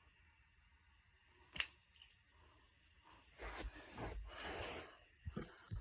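A single sharp knuckle or joint crack about a second and a half in, with a fainter click after it. Then a couple of seconds of soft noise and a few short clicks near the end.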